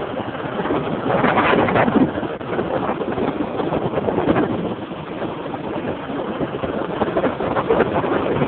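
Honda CG Titan single-cylinder motorcycle running while ridden along a street, its engine mixed with wind rushing over the microphone.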